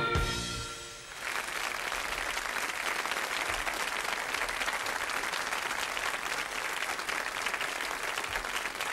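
The tail of a piece of music dies away in the first second, then a studio audience applauds steadily.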